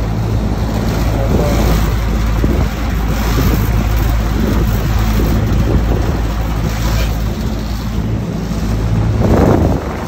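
A running air-conditioning unit: a steady low compressor hum under the rushing air of the fan, with a brief louder surge of rushing noise just before the end.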